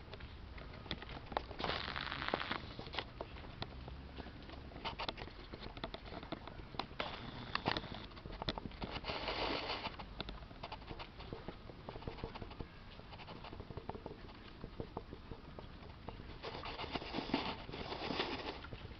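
Scattered light footsteps and rustling on grass from a man and a German shepherd puppy moving about, with a few short, louder noisy stretches.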